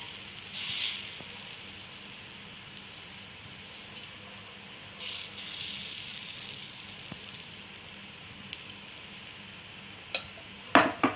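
Gram-flour batter sizzling as it is poured and spread with a ladle on a hot oiled tava, the hiss swelling as fresh batter hits the griddle. A few sharp clacks near the end.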